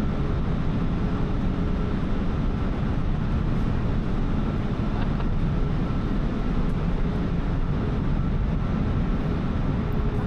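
Steady low machinery rumble on a ferry's enclosed car deck, the ship's engines and ventilation, with a faint thin steady tone running through it.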